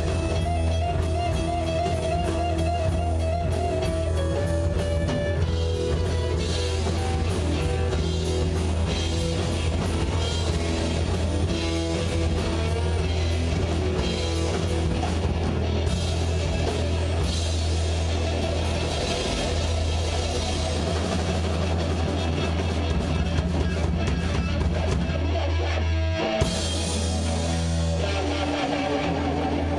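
Live rock band playing electric guitars over a drum kit, with a held, wavering guitar note in the first few seconds and a momentary break near the end before the band comes back in.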